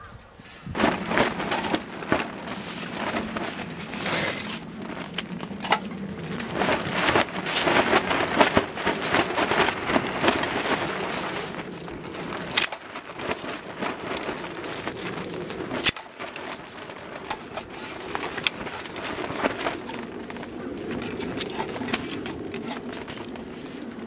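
A wood fire crackling and popping in a small stainless-steel fire stand, a dense run of sharp snaps, with clinks and knocks as sawdust charcoal briquettes are set on the metal stand.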